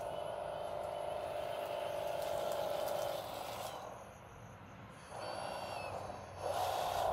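Motor whine from a 1/14-scale full-metal hydraulic RC wheel loader as it crawls over rough ground. A steady whine fades about three seconds in. After a quieter moment a new whine starts, and near the end it wavers up and down in pitch.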